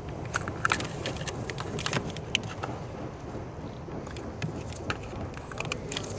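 Scattered light clicks and knocks of ignition coil packs being prised out of the engine's cylinder head by hand, a few sharper ones in the first couple of seconds, over a steady low rumble of background noise.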